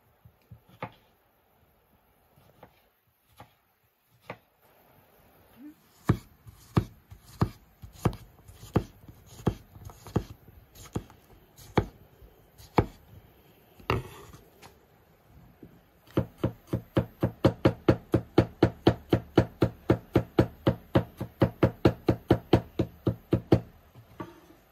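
Kitchen knife chopping vegetables on a wooden cutting board. After a few light taps there are single cuts a little over one a second, then about two-thirds in a fast, even run of about four to five strokes a second.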